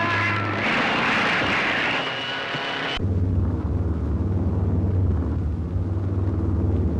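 Air-raid sound effects on an old film soundtrack. First comes about two seconds of dense rushing noise. Then, after an abrupt cut about three seconds in, a steady low drone of engines runs on.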